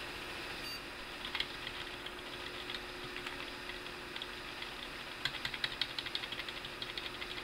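Computer keyboard keys tapped: a single tap about a second and a half in, then a quick run of taps from about five seconds in, keying into the BIOS as the PC restarts. Under it, the steady hum of the desktop PC running.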